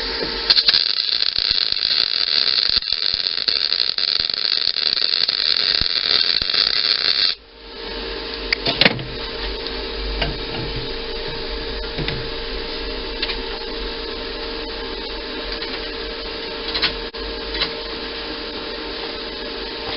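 MIG welder arc hissing and crackling while a nut is welded onto the stub of a sheared bolt. It cuts off suddenly about seven seconds in. After that a quieter steady hum continues, with a few sharp clicks.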